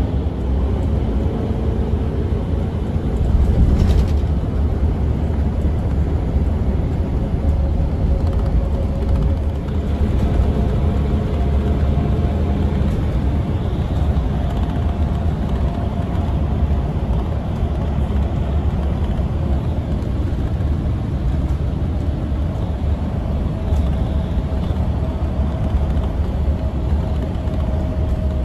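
Steady low rumble of a road vehicle travelling at speed, heard from inside the cabin: engine, tyre and road noise with a faint steady hum above it.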